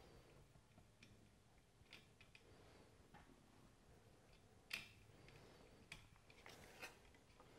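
Near silence with a scattered handful of faint, sharp clicks and taps from small metal hardware and a blade root being handled against an aluminium hub by hand. The sharpest click comes a little past halfway.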